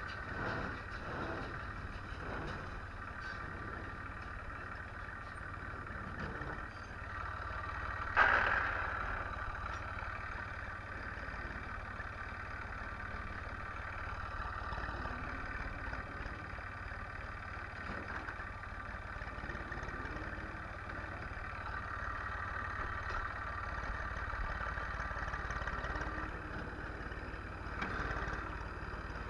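Ursus C-360-3P tractor's four-cylinder diesel running steadily under load while pulling a small square baler through wheat straw, with a single loud knock about eight seconds in.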